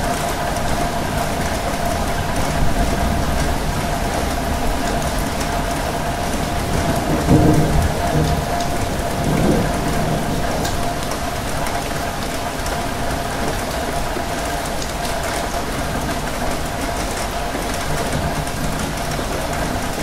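Steady rain falling, an even hiss over a faint steady hum, with a low rumble swelling twice near the middle.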